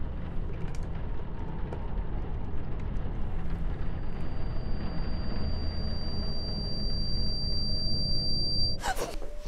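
Low, steady rumbling suspense drone from the film's sound design, with a thin high-pitched whine coming in about halfway. Both cut off abruptly near the end, followed by a few sharp clicks.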